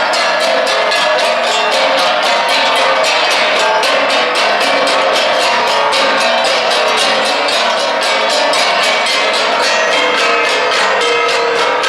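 An ensemble of Igorot gangsa, flat bronze gongs, beaten in a quick, even interlocking rhythm, their metallic ringing tones overlapping continuously.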